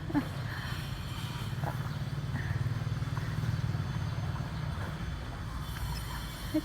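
Small motorcycle engine running steadily at a low, even pulse, a little louder in the middle.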